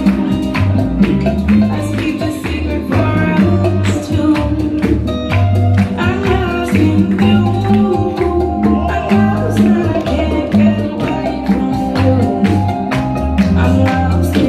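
Bachata song playing loudly: a singing voice over guitar and a quick, steady scraped percussion beat.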